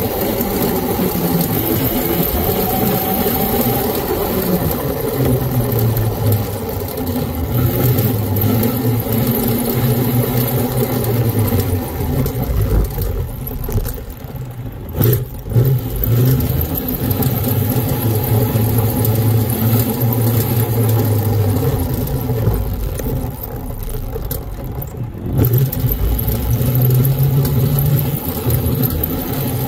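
Riding noise from a custom 52-volt, 1800-watt electric mini scrambler on the move: a steady low drone with wind and road hiss, easing off twice, around halfway and again about four-fifths of the way in.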